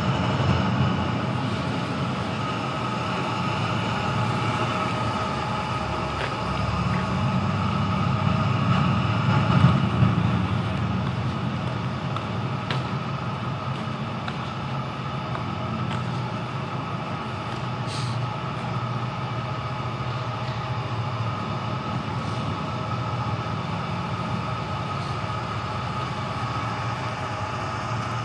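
Supercharged BMW 540i's 4.4-litre V8 with a straight-pipe exhaust running inside a concrete parking garage. It rises to its loudest about ten seconds in, then settles to a steady run as the car rolls slowly.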